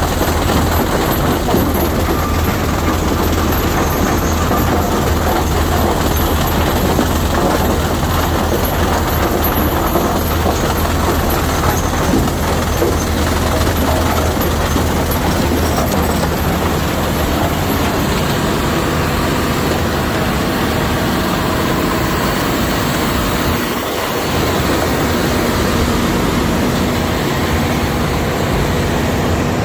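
McCloskey R155 mobile screening plant running under load: a steady mechanical rumble with lime rock clattering through the hopper and over the vibrating screen. A low drone underneath drops away about halfway through.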